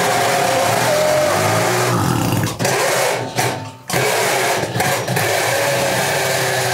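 Small two-stroke moped engine running loud and rough as the throttle is worked, faltering and nearly cutting out several times around the middle. It is running on starting spray and struggling to keep going without more.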